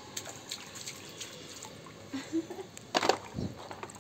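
Water dripping and splashing in small amounts while muddy plastic toy vehicles are washed, with scattered light clicks and a louder splash about three seconds in.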